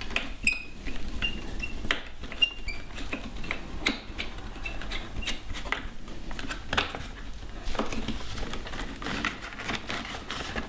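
Light metallic clicks and taps from a bolt being refitted by hand and with a tool on a motorcycle's cover panel, with a few short high squeaks in the first half.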